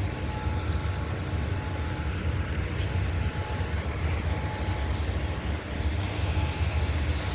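Distant rotating outdoor warning siren sounding a steady tone that swells and fades as the siren head turns, over a low rumble.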